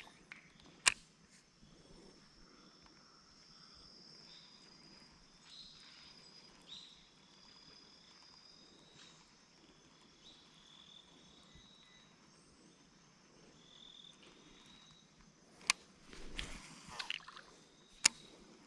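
Quiet outdoor ambience of steady high insect chirring with thin, wavering higher calls. It is broken by three sharp clicks, one about a second in and two near the end, with a short rustling patch between the last two.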